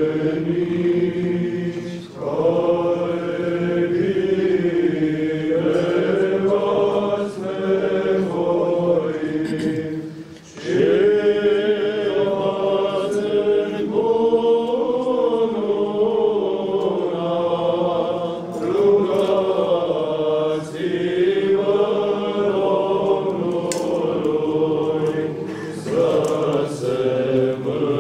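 Group of voices chanting an Orthodox liturgical hymn, with sustained melodic lines that break off briefly about ten seconds in before resuming.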